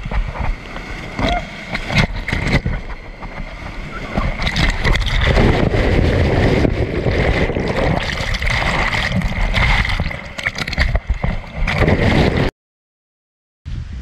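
Whitewater rushing and splashing around an inflatable raft running rapids, picked up close on a helmet-mounted GoPro, with many sharp knocks. It cuts out abruptly near the end.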